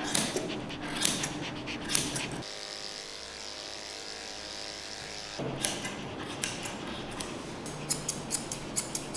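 Grooming scissors snipping through a Yorkshire terrier's long coat a few times, then an electric pet clipper running steadily for about three seconds. After it stops, rapid scissor snips, several a second, near the end.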